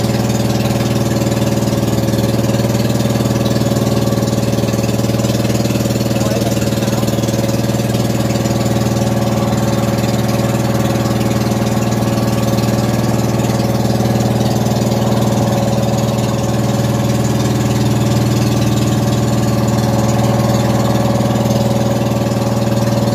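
Outrigger boat's engine running steadily under way, an even drone that does not change in pitch or level.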